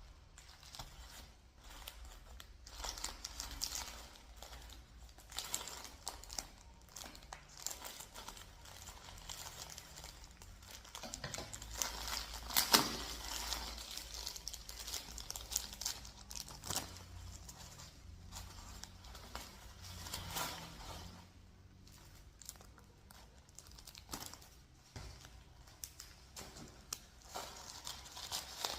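Parcel packaging being handled by hand, crinkling and tearing in irregular strokes as it is opened, with one sharper, louder snap about halfway through.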